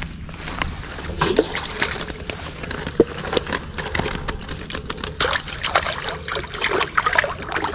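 Water splashing and sloshing in many small, quick splashes as a wire-mesh keep basket sitting in the shallows is opened and handled and a freshly caught sunfish is put into it.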